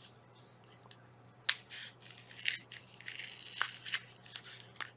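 Small plastic packet of amigurumi safety eyes being opened and handled, crinkling and rustling, with sharp clicks and crackles from about a second and a half in.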